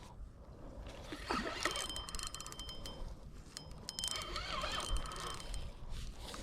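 Fishing reel clicking rapidly in two runs with a thin high whine, as the reel gives or takes line while a hooked fish is played.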